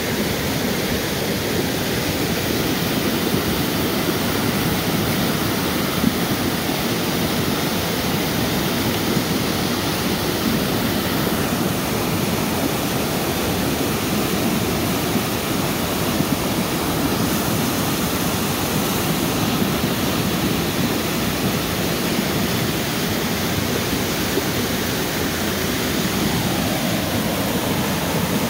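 Flooded river, muddy water rushing and churning over rocks in rapids with a steady, even rush. The river is swollen and rising after heavy storm rain.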